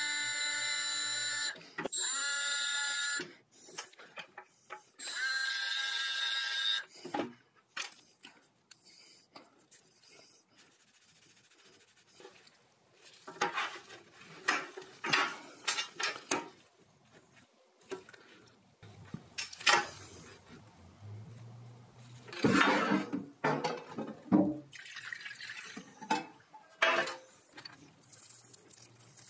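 A rotary tool with a cone-shaped abrasive point grinds rust off the head of a small pin with a high whine, cutting off and spinning up again twice. From about seven seconds in, a toothbrush scrubs rusty gears and rods in a tray of liquid, with splashing and light clicks of metal parts.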